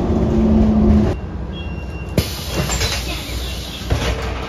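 Electric city bus pulling to a stop: its low running hum and steady tone drop away about a second in, followed by a brief high beep, a clunk and a steady hiss, with another clunk near the end.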